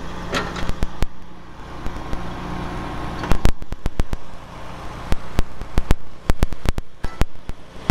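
Steady low hum of a vehicle engine running until about three seconds in. Then comes a run of sharp metallic clicks and clunks as a classic Mini's bonnet is unlatched from behind the grille and lifted open.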